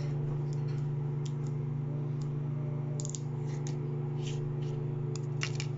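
Apple AirTag packaging being handled and its clear plastic protective film pulled: scattered small crinkles and clicks, more frequent from about three seconds in, over a steady low hum.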